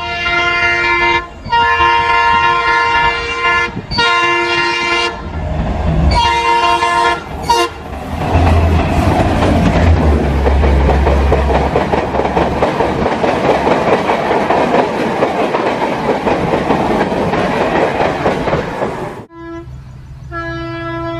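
Locomotive horn sounding in several long blasts over the first seven seconds or so, then a train passing at speed with a loud rushing noise, low rumble and wheel clatter. Near the end the sound cuts off suddenly and another horn begins.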